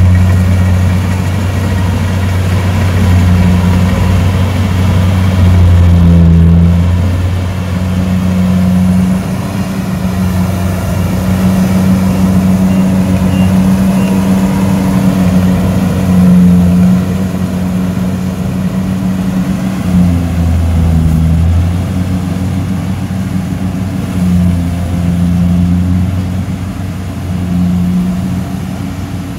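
An engine running steadily, its hum swelling and easing every few seconds as the load or speed changes.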